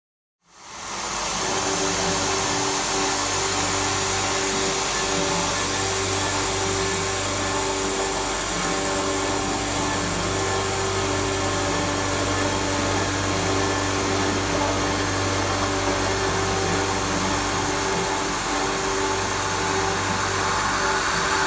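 EXACUT EM-80 automatic high-speed circular saw machine running steadily as it cuts 70 mm stainless steel bar: a constant motor hum and whine under a dense hiss. It comes in about half a second in and holds steady without a break.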